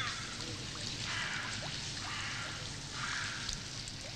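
Running water, trickling and splashing, swelling and easing a few times.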